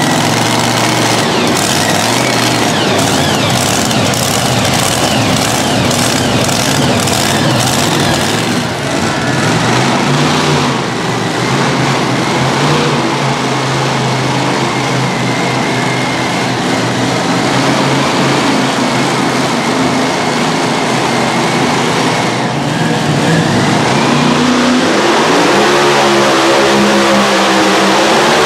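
Mini unlimited pulling tractor engines running loud, with a rapid run of sharp cracks through the first several seconds. Near the end an engine revs up with rising pitch as a tractor starts its pull.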